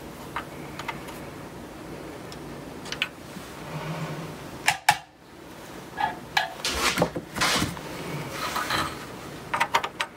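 Scattered small clicks, taps and scrapes of hand tools handled and set down on a workbench during desoldering, with a few short rough scraping stretches.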